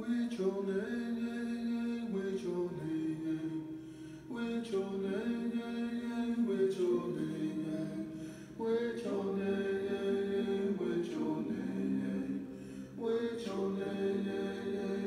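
Unaccompanied, chant-like singing in long held phrases of about four seconds each.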